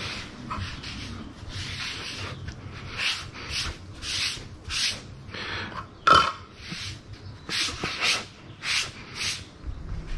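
Sponge scrubbing a wooden cutting board in short scratchy strokes, roughly two a second. A single sharp knock with a brief ring about six seconds in.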